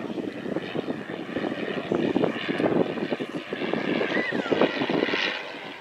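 Engine of a 1918 Thomas Morse S4-B biplane running as the plane flies overhead: a rough, rapid pulsing drone.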